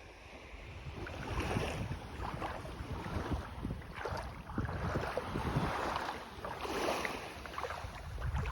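Small waves washing onto a sandy beach, swelling and fading a few times, with wind rumbling on the microphone.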